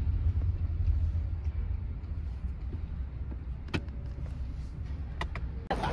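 Steady low rumble of a car's engine and road noise heard from inside a taxi's cabin while it drives, with a few short clicks in the second half.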